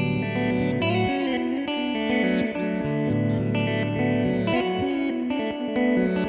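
Electric guitar, a Fender Jazzmaster, played through an Old Blood Noise Endeavors BL-44 reverse pedal. Overlapping notes sustain and swell backwards, with some wavering pitch bends.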